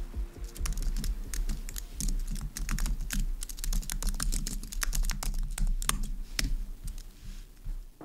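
Fast typing on a low-profile computer keyboard, a quick run of light key clicks that thins out near the end.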